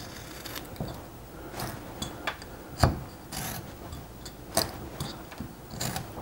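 Carving knife pushed straight into a basswood block and paring out small chips as stop cuts are made: a series of irregular sharp clicks and snaps, the loudest about three seconds in.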